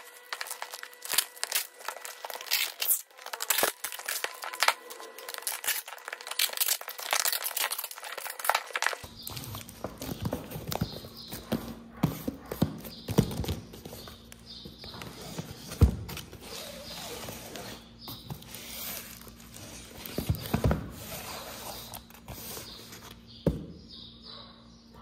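Cardboard box being folded, handled and sealed with clear packing tape: irregular rustles, scrapes and knocks, with one sharp knock about two-thirds of the way through.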